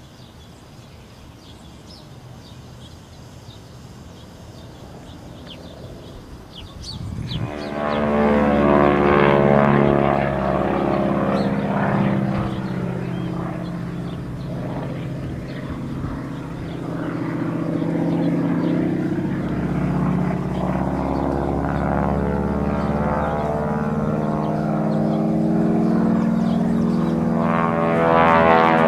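Vintage single-engine propeller airplane flying aerobatics. Its engine and propeller are faint at first, then come in loud about seven seconds in as a steady drone whose pitch slowly rises and falls.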